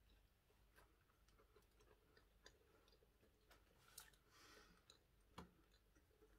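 Near silence, with a few faint clicks and a soft rustle about four and a half seconds in, from chewing and handling dry compressed food bars.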